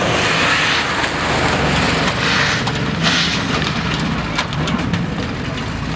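Off-road 4x4 engines running as the vehicles drive across a muddy track, a steady low hum with swells of rushing noise and a few sharp clicks.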